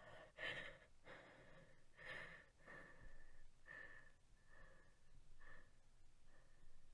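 A woman's faint, heavy breathing in short, distressed breaths and sighs, about one a second.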